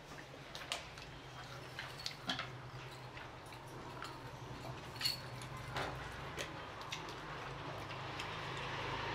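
Eating sounds: faint, scattered clicks and taps from chopsticks and noodles, and from handling a sauce bottle, over a low steady hum.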